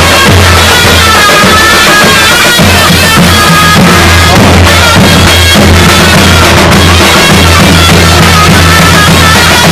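Davul and zurna playing Turkish folk music, very loud: the shrill, reedy zurna carries a melody that steps up and down, over the steady low beat of the davul bass drum.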